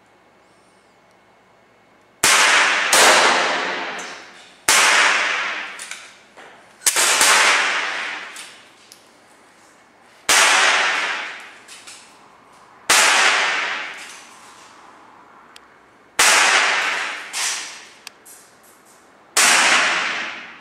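Air rifle shots, about ten sharp reports spaced one to three seconds apart, some in quick pairs, each ringing off in a long echo from the garage. A few faint ticks fall between them.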